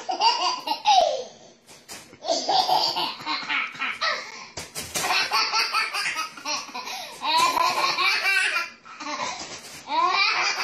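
Toddler laughing hard in repeated bouts, high-pitched, with short pauses between the bouts.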